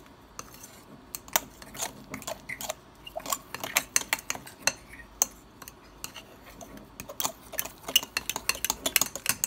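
A metal utensil stirring thick cream cheese icing in a ceramic bowl, clinking and scraping against the bowl's sides in quick, irregular taps that get busier toward the end.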